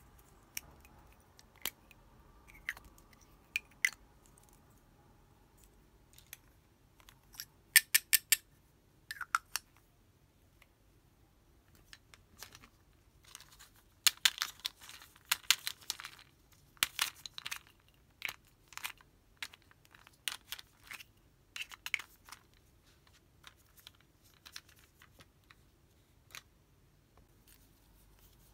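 Long fingernails tapping and clicking on small plastic toy lipstick tubes and their caps, in short quick runs of taps with pauses between, busiest about halfway through.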